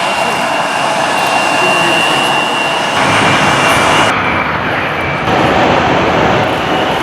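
Jet airliner engines running loud and steady, a broad rush with a thin high whine over it. The sound changes abruptly about three seconds in and again twice more, and the whine stops about four seconds in.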